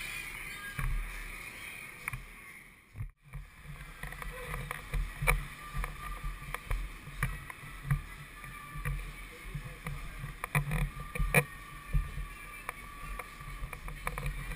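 Muffled handling noise of a carried GoPro in its housing: a low rumble with irregular knocks and thumps, broken by a brief dropout about three seconds in.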